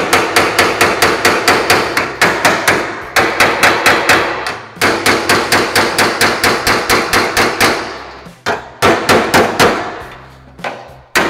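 A slapper made from a bent piece of leaf spring striking the dented sheet steel of a 1940 Willys hood, about five blows a second in runs broken by short pauses. The panel rings with each blow.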